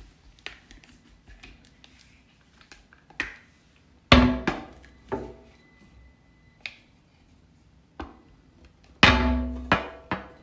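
Scattered small clicks and two loud knocks on something hollow, about five seconds apart, each ringing briefly.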